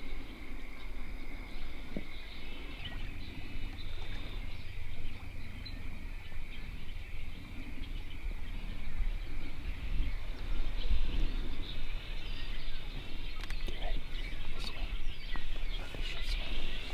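Outdoor wind rumble on the microphone with faint, continuous high-pitched bird chatter in the background.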